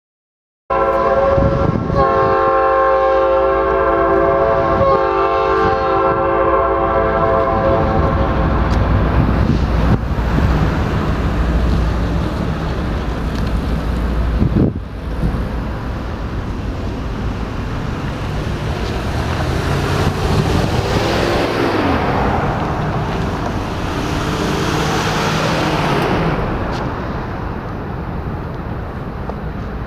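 Norfolk Southern GP38-2 diesel locomotives sounding a multi-chime air horn for a grade crossing, in several blasts over the first eight seconds or so. Then comes the heavy rumble of the locomotives' diesel engines and the steady rolling noise of covered hopper cars on the rails as the short freight passes.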